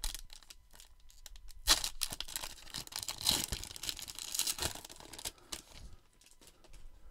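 A baseball card pack's wrapper being torn and crinkled open by hand: an irregular crackling, loudest about two and three seconds in, fading out after about six seconds.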